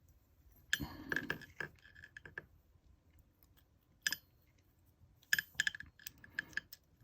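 Small metallic clicks and taps of tools working a Yale euro cylinder lock as it is taken apart: a quick run of clicks about a second in, a single click near four seconds, and another run of clicks after five seconds.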